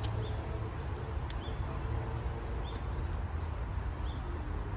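A faint short high chirp about once a second over steady background noise with a low rumble.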